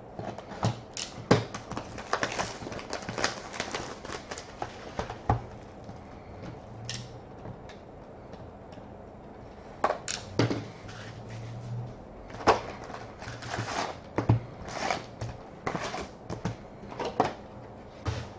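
Cellophane shrink wrap on a trading-card box is slit and peeled off, crinkling, then the box is opened and its foil packs are handled and set down, giving a run of irregular clicks, crackles and taps.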